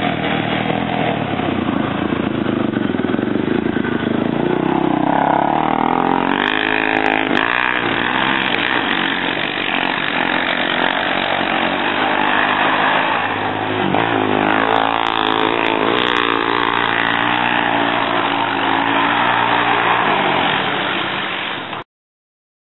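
Two quad bikes, a Yamaha Raptor and a Yamaha Grizzly, riding along a dirt track, their engines revving with pitch rising and falling as they come up and pass. The sound cuts off suddenly near the end.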